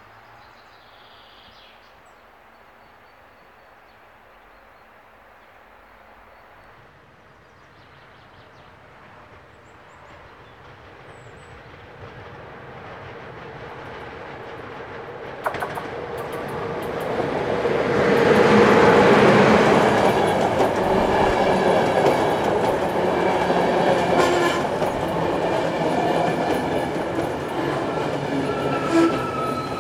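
An InterRegio passenger train approaches and comes through, faint at first and growing steadily louder. Its wheels and cars run loudly on the rails over the second half, with thin high squealing tones from the wheels appearing near the end.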